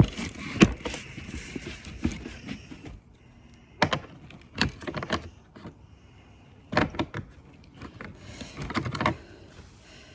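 Metal hand tools, pliers among them, clinking and clattering as they are gathered up and put away: a busy run of knocks and rattles, then separate short bursts every second or two.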